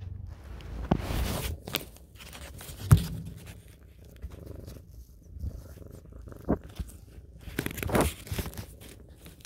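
Kitten purring right at the phone's microphone, with fur brushing and rubbing against the phone. Scattered bumps come as it nuzzles, the sharpest a knock about three seconds in.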